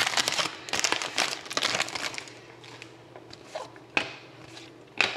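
Foil trading-card pack wrapper being crumpled and torn open, crinkling for about two seconds, then a few light clicks.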